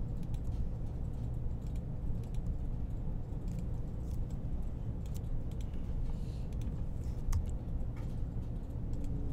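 Scattered clicks of computer keyboard keys and a mouse, sparse and irregular, over a steady low hum.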